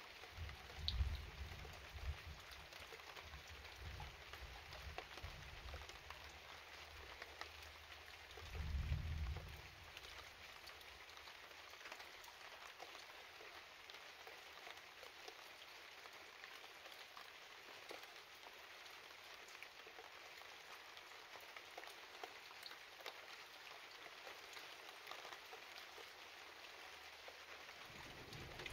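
Rain falling steadily during a thunderstorm, a soft even hiss made up of many small drop ticks. Two brief low rumbles come through, one about a second in and one about nine seconds in.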